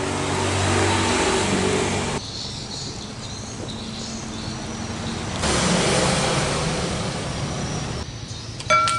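A large pot of soup at a rolling boil, bubbling steadily as a metal ladle stirs it. Near the end a ladle clinks once against a ceramic bowl with a short ring.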